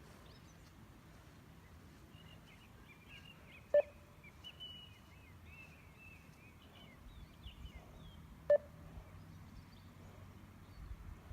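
Two short electronic beeps about four and three-quarter seconds apart: the shuttle signals of a 20 m beep test at level 14, each marking when the runner must reach the line. Faint bird chirping fills the gap between them.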